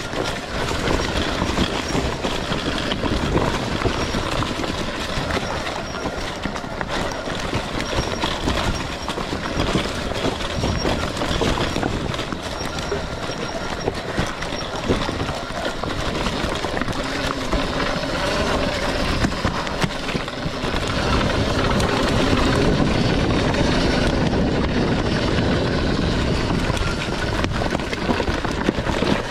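RFN electric dirt bike going down a steep rocky descent: a continuous rattling clatter of the bike's chassis and suspension and its tyres over loose rocks. The clatter grows louder over the last third.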